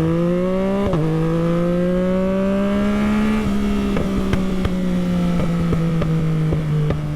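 2021 Yamaha MT-09's inline-three engine through an Akrapovic race exhaust, revving up through a gear change about a second in. It then rolls off the throttle, its note falling, while the exhaust crackles with a string of sharp pops on the overrun.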